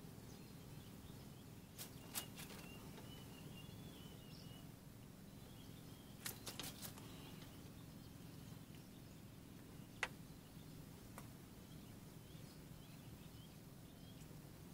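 Quiet outdoor ambience: a low steady hum with a few faint scattered clicks, the sharpest about ten seconds in.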